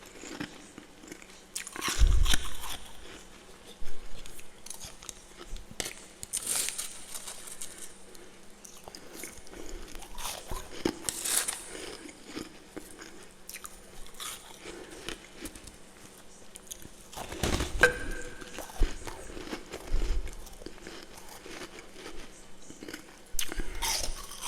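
Someone biting and chewing powdery freezer frost close to the microphone: loud, sharp crunches every few seconds, with softer crackling chews between them.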